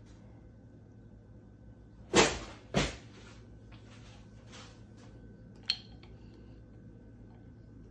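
Two sudden knocks of handling off to the side, then a few faint rustles and, near the end, one sharp click with a short ring as a plastic straw is pushed into the ice-filled margarita glass.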